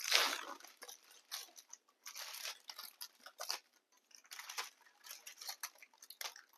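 Faint, scattered rustling, crinkling and light ticks of hands handling cookie dough and its wrapping, with a louder rustle at the start.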